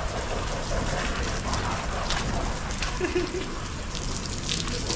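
Water from a garden hose spraying steadily over a person and splashing onto wet concrete.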